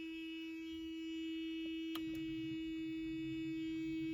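Steady electric warning buzzer of a 1984 Mazda RX-7 sounding with the ignition switched on and battery power restored. About two seconds in there is a click, and a low hum joins.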